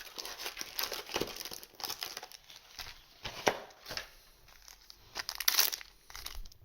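Booster pack wrappers crinkling and tearing open in irregular rustles, loudest about five and a half seconds in.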